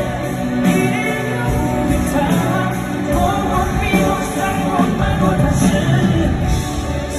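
Live pop concert: a male singer singing with a full band, recorded on a phone from the audience seats.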